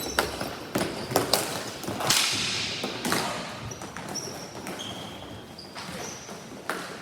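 Ball hockey play: sticks and ball knocking sharply several times, with one harder hit about two seconds in that rings out for about a second, and a few short squeaks in the middle.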